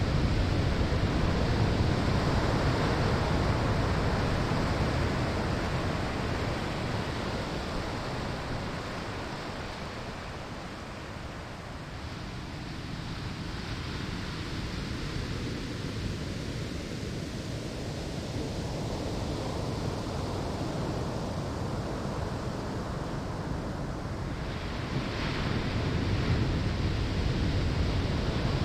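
Ocean waves breaking on a sandy shore: the surf wash is loud at first and dies away over about ten seconds, then slowly builds again, and a new wave crashes in near the end.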